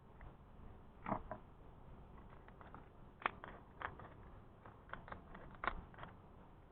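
Irregular light clicks and knocks, a dozen or so, of small hard objects being handled; the loudest come about a second in, after three seconds and near the end.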